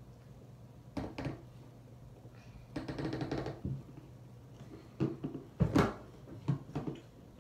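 Pump bottle of CeraVe cleanser being pressed and the product worked between the hands: short knocks and clicks about a second in, a rapid squelchy sputter near the middle, and a cluster of sharper knocks and rubbing sounds in the last couple of seconds.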